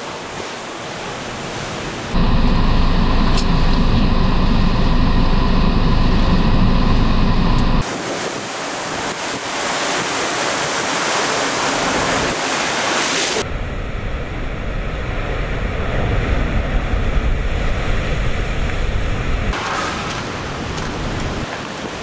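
Storm surf: large waves breaking and churning on the shore in strong wind, with heavy wind buffeting on the microphone. The sound changes abruptly several times where separate recordings are cut together, and is loudest and most buffeted for a few seconds starting about two seconds in.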